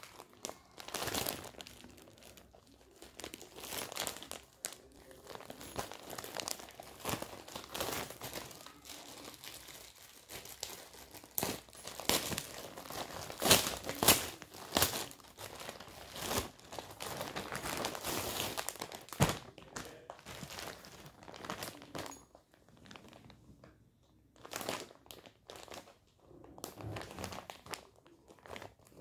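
Plastic courier mailer bag crinkling and rustling in the hands as it is opened, in irregular bursts that are loudest about halfway through and quieter near the end.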